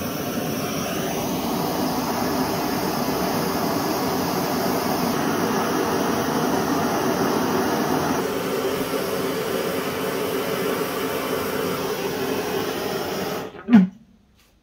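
Gas flame torch burning steadily with a hissing rush while heating plugs in an engine block to loosen them. It cuts off suddenly about a second before the end, followed by a short thump.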